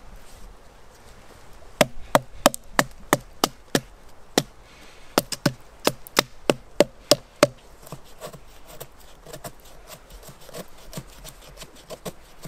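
Firewood being split into kindling: a quick run of sharp wooden knocks, about three a second, then lighter, quieter knocks for the last few seconds.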